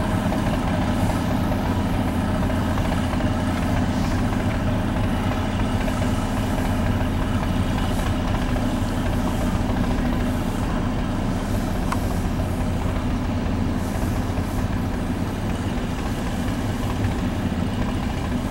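Heavy truck engine running steadily, a continuous low hum.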